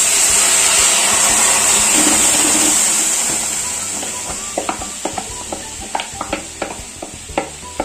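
Grated pineapple hitting a hot non-stick kadhai and sizzling loudly, the hiss strongest for the first few seconds and then slowly dying down. Over the last few seconds the spatula clicks and scrapes against the plate and pan.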